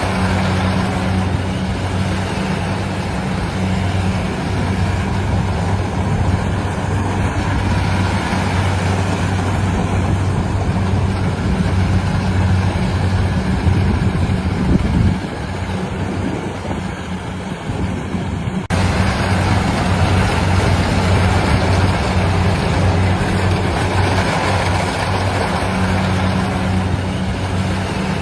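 Engine of a rice-harvesting machine running steadily, with a deep, even hum. It drops in level for a few seconds past the middle, then comes back suddenly.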